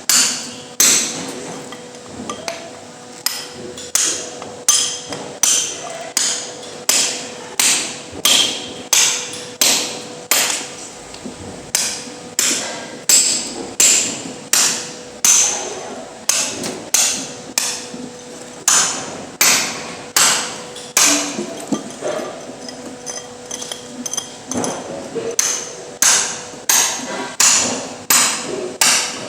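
A hammer striking over and over at an even pace, about three blows every two seconds, each blow ringing briefly. A faint steady hum runs underneath.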